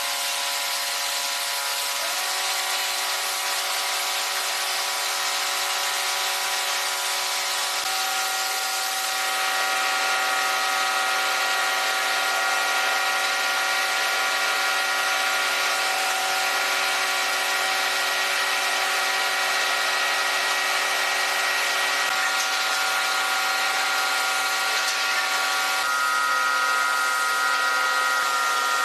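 Electric power tool running without a break, a steady whine over a hiss, with its tone shifting slightly a few times.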